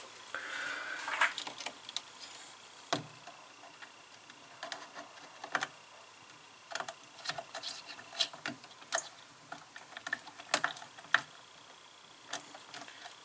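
Irregular small clicks and taps of wires being handled and worked into a screw terminal strip in an electrical control cabinet. A faint steady high tone sounds for a few seconds in the middle.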